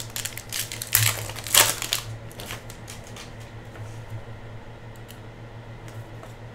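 A foil trading-card pack wrapper being torn open, with two loud crinkling rips about a second in, then cards being slid out and handled with light ticks. A steady low electrical hum runs underneath.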